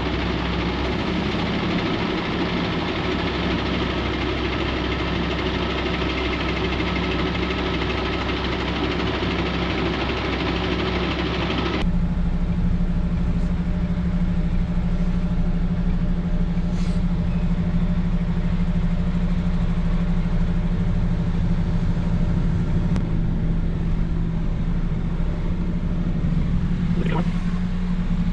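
Heavy truck engine running steadily with road or air noise. About twelve seconds in the sound changes abruptly: the hiss drops away and a steady low engine drone takes over.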